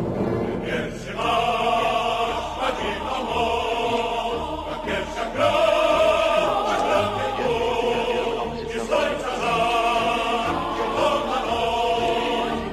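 Choral background music: a choir sings long held chords that change every few seconds.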